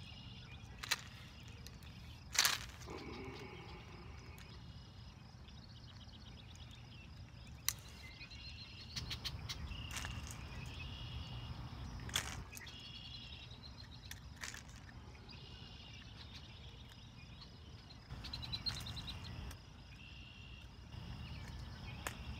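Dawn chorus of chirping insects and frogs: short pulsed trills repeating again and again. Over it come a few sharp clicks, the loudest a couple of seconds in, from scissors working a lure's treble hook out of a bass's mouth.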